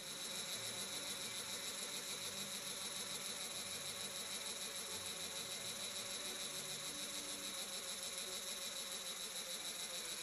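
Makita electric drill running steadily, spinning an aircraft exhaust valve against its seat to lap it in place with grinding compound: a steady whirring grind with a fast, even pulsing, about four or five a second.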